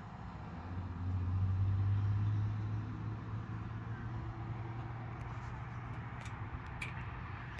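An engine running steadily with a low hum. It swells louder about a second in and then settles back a little.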